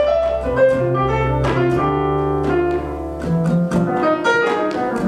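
Live jazz: acoustic piano playing a line of struck notes over acoustic bass. The tenor saxophone is silent.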